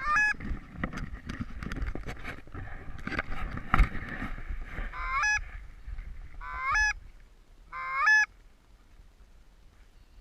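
Goose honks: four single calls, each rising then holding, one at the start and three spaced over the second half. Irregular rustling and clicking fill the first half, with a sharp knock about four seconds in.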